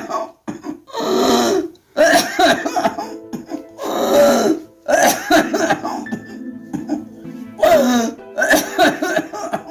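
A sick person coughing over and over in about six separate bouts, with throat clearing: a persistent, continuous cough that leaves the patient hardly able to talk.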